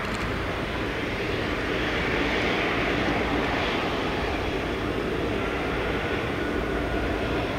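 Rolls-Royce Trent 1000 turbofans of a Boeing 787-8 airliner on final approach, a steady jet rumble and hiss that swells slightly as it draws closer, with a faint whine in the later part.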